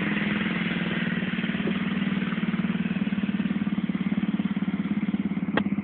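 Tauris Mambo 125 scooter engine idling steadily, with an even pulsing beat.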